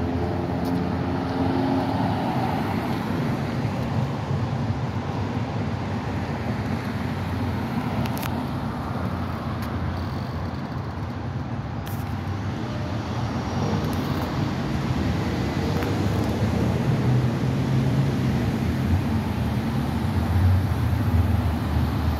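Steady city traffic, with cars driving past one after another. Over the last few seconds the low hum of a transit bus's Caterpillar C9 diesel engine grows louder as the bus approaches.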